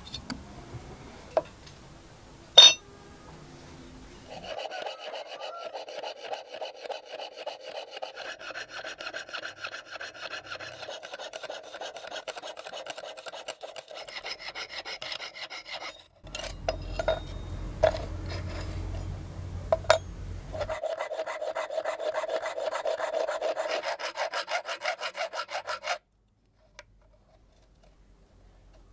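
Fine-toothed hand saw (jeweler's saw) cutting a 1.5 mm brass sheet in rapid, even strokes, with a thin metallic ring from the blade. The sawing pauses briefly in the middle and stops about three seconds before the end. A sharp click comes early on, before the sawing starts.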